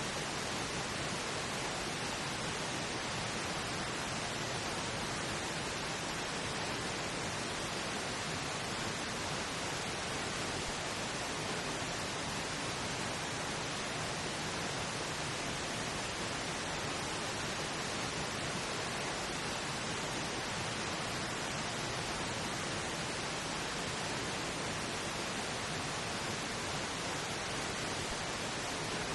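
Steady pink noise, an even hiss with no changes, used as the masking layer of a subliminal affirmation track.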